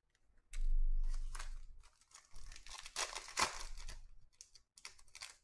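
Shiny wrapper of a Panini Contenders football card pack being torn open by hand: a long run of tearing and crinkling starting about half a second in, then a few shorter crinkles near the end.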